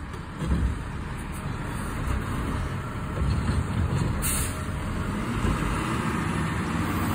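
Garbage truck's engine running as it pulls away, with a short hiss of air about four seconds in.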